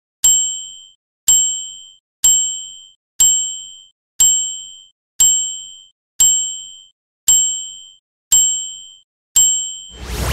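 Countdown sound effect: ten identical bright dings, one about every second, each a two-tone ping that fades out in well under a second. Right at the end a loud burst of music starts.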